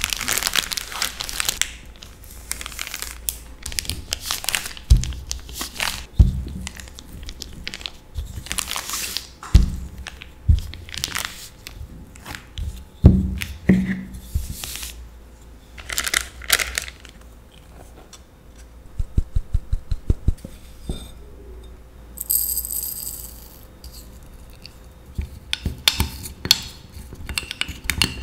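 Plastic zip-top bag crinkling and rustling as cookie dough is pressed inside it and flattened with a wooden rolling pin, with a few soft knocks on the counter and a quick run of clicks about two-thirds of the way through.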